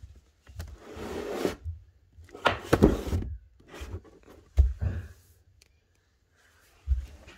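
Things being handled and moved about: irregular knocks, rubbing and thumps, with a scraping swish about a second in and a louder clatter near three seconds.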